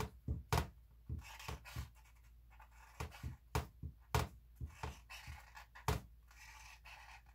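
Marker pen squeaking and scratching on stretched canvas in short, irregular strokes while lines are drawn over to thicken them; the tip is squeaky.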